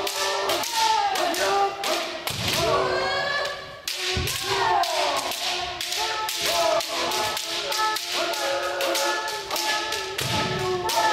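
Kendo sparring by many practitioners at once: fast, irregular cracks of bamboo shinai striking armour and each other, with feet stamping on a wooden floor. Several people shout kiai at once, their long drawn-out yells overlapping the strikes.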